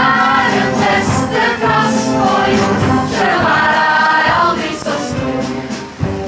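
Musical-theatre ensemble choir singing with instrumental accompaniment, swelling into a long held note about three seconds in before the music eases off near the end.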